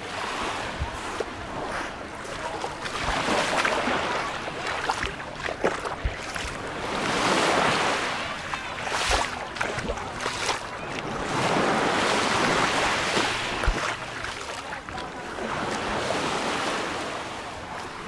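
Small Mediterranean waves washing up and drawing back over a pebble shoreline, the hiss swelling and fading about every four seconds.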